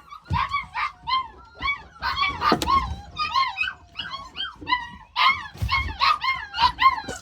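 Puppies whimpering and yipping in quick runs of short, high calls, each rising then falling in pitch, with a brief lull a little past halfway.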